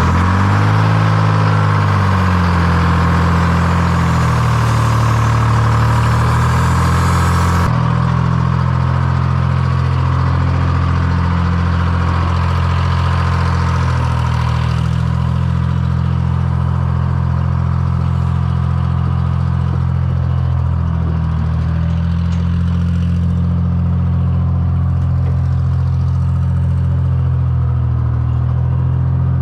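A vehicle engine running loudly, its pitch shifting in the first few seconds and then holding steady. A hiss over it cuts off abruptly about eight seconds in.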